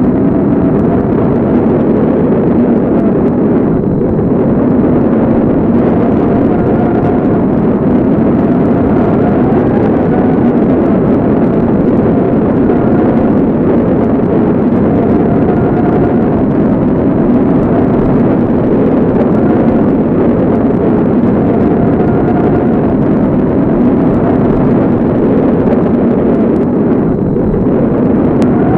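Tornado wind sound effect: a loud, steady, dense rumble of rushing wind with a faint wavering howl over it.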